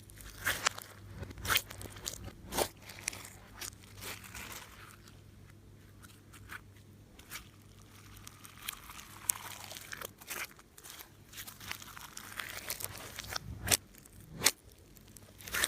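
Slime and plastic piping bags being squeezed and handled, giving irregular crunchy clicks and crackles with a soft rustling in between.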